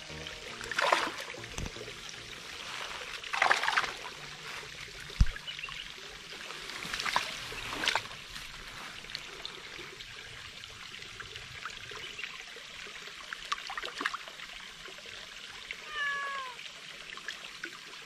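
A Dragon Li (Chinese tabby) cat meows once near the end, a short call falling in pitch. Several short scuffling noises sound earlier, over a faint steady trickle of water.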